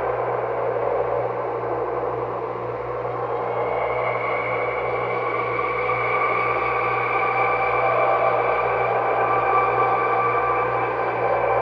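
Horror sound-effect ambience: a sustained drone of several layered held tones over a noisy wash, with no beat. A higher tone swells in about four seconds in.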